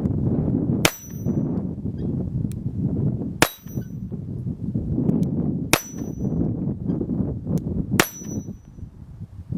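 .22 rimfire gunshots: four sharp cracks about two and a half seconds apart, each with a brief high metallic ring, and a few fainter pops between them.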